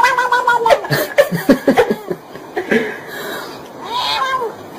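A cat meowing while being petted: one long drawn-out meow at the start, then a shorter meow that rises and falls near the end. A person laughs in between.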